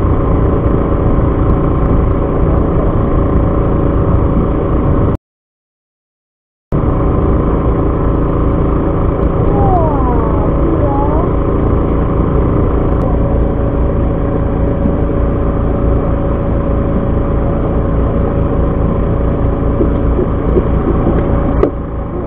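Fishing boat's engine running with a steady drone. Near five seconds in, the sound cuts out completely for about a second and a half, then the same drone resumes.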